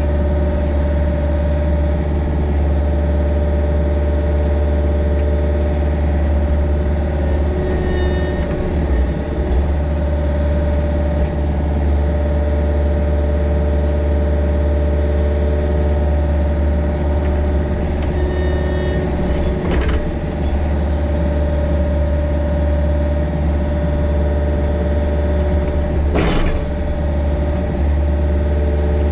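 Mini excavator engine running steadily, with a few brief knocks now and then.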